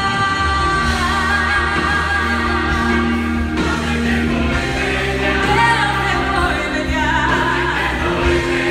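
Choir and a female lead singer singing a Romanian worship song with live band accompaniment, sustained notes over a steady low bass.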